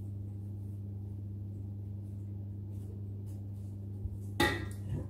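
A steady low hum, then about four and a half seconds in a metal baking tray is set down with a short clatter and a brief metallic ring.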